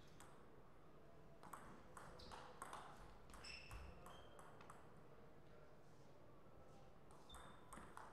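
Table tennis rally: the ball clicking off bats and table in a quick back-and-forth for about three seconds, starting a second and a half in, with a few short high squeaks among the hits. Near the end come a few more clicks.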